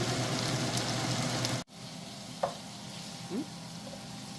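Food sizzling as it fries in hot oil, a steady hiss that cuts off abruptly after about a second and a half. A quieter background follows, with two brief, faint rising squeaks.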